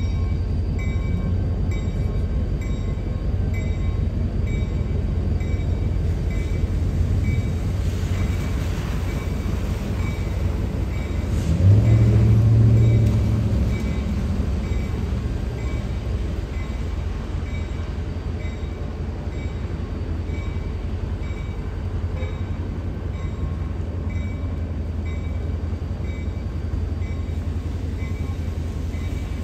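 Diesel-electric locomotive running with a steady low engine rumble that swells louder for about two seconds some twelve seconds in, over a bell-like ring repeating about one and a half times a second in the first half.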